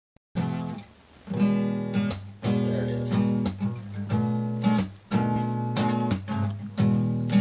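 Guitar strummed in chords as an unaccompanied song intro, starting about half a second in, with a new strum every half second or so and each chord left to ring.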